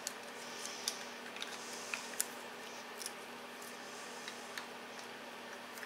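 Plastic wire connectors and cables being handled and pushed into the sockets of a CNC controller board: light, scattered clicks and ticks, most in the first three seconds, over a faint steady hum.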